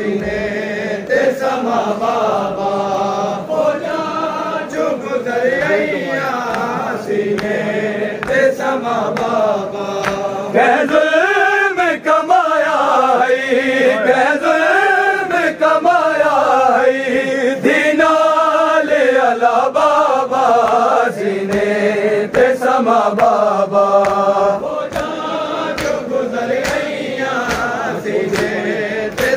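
Men's voices chanting a noha, a Shia lament, together in a rising and falling melody, with sharp slaps of chest-beating (matam) scattered through it.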